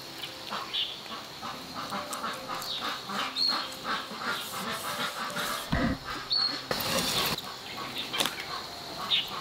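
A cleaver slicing raw fish on a wooden chopping block, with short knife taps and scrapes, while ducks quack in the background.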